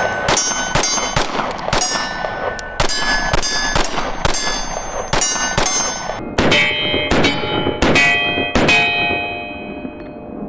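A string of about fifteen 9mm pistol shots (Lone Wolf Dusk 19) at an irregular pace, each followed by a metallic ring. The ringing trails off near the end.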